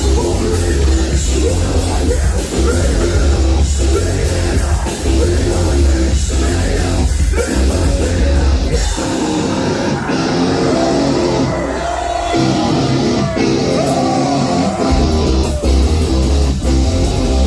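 Heavy metal band playing live, with distorted guitars and drums. The deep bass end drops out for several seconds in the middle and comes back in about fifteen seconds in.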